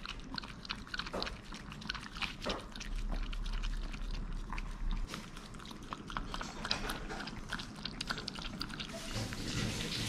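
Maltese dog licking a puppuccino from a plastic spoon and cup: a run of quick, irregular wet licks and smacks.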